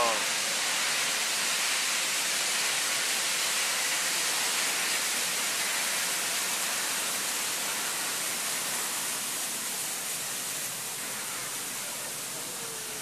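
Steady hiss of escaping steam from a steam locomotive as it rolls slowly past, easing off gradually.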